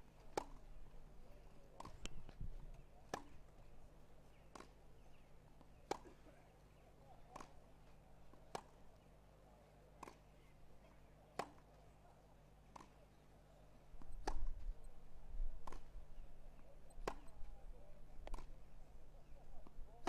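Tennis ball struck back and forth by rackets on a grass court, a sharp pock about every second and a half, some hits nearer and louder than others. A low rumble swells for a couple of seconds about two-thirds of the way in.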